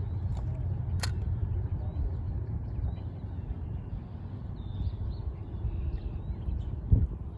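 Faint bird chirps over a steady low rumble, with a sharp click about a second in and a thump near the end.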